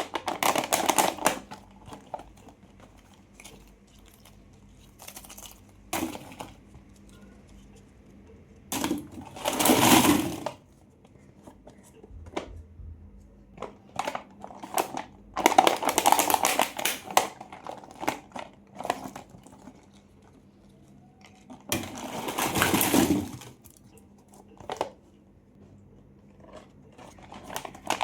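Candy wrappers being handled and opened: bursts of crinkling plastic and foil, about six of them, with short clicks and quiet pauses between.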